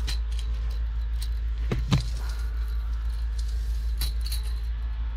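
Steel tape measure being pulled out and handled, its blade rattling and clicking with small metallic clinks. The loudest part is a sharp double knock about two seconds in, all over a steady low hum.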